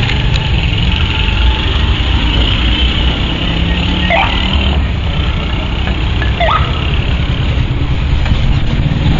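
Car engine idling, heard from inside the cabin as a steady low rumble, with two short sliding tones about four and six and a half seconds in.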